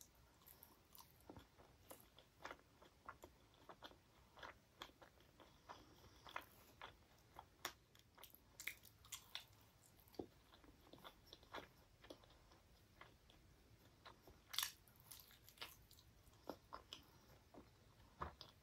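Quiet, close-miked eating sounds as an Indian sweet is bitten and chewed: a run of short wet smacks and clicks from the mouth, several a second, with one louder smack about two-thirds of the way through.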